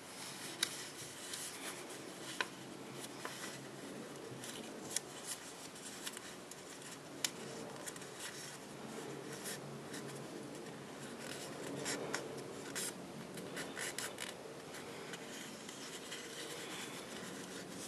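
A sheet of copy paper printed as a dollar bill is handled, folded and creased by hand. It rustles and rubs continuously, with a few sharp, crisp clicks as the creases are pressed down.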